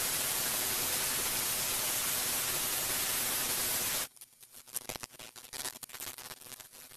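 Electric power file (narrow belt sander) running steadily on a small plywood part, a hiss-like sanding noise that cuts off suddenly about four seconds in. Faint handling clicks of the wooden part follow.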